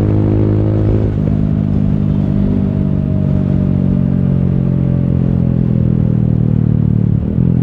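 Yamaha YBR 125G's single-cylinder four-stroke engine running while under way. The note breaks briefly about a second in and again near the end, and falls slowly in between.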